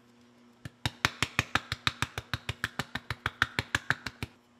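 Plastic spice jar of ground ginger being shaken over a cooking pot: a fast, even run of sharp clicks, about seven a second, starting about a second in and stopping shortly before the end.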